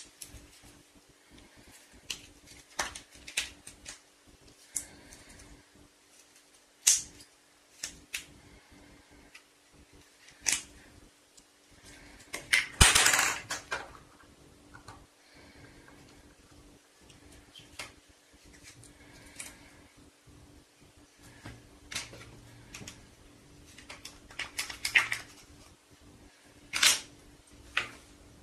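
Red Play-Doh being squeezed and kneaded between the fingers: scattered short sticky clicks and squishes, with a louder, longer crackle about 13 seconds in.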